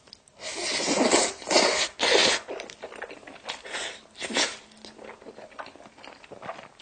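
Close-miked slurping of Carbo Buldak stir-fried instant noodles: a run of long, noisy slurps in the first two seconds and another about four seconds in, then soft, wet chewing.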